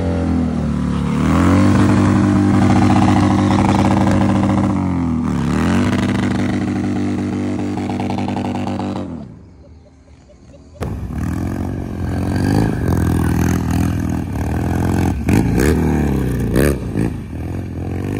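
Motorcycle engine held at high revs during a burnout, the note dipping briefly twice, then fading out about nine seconds in. After a short lull, a motorcycle engine is revved up and down over and over, with sharp pops and clatter.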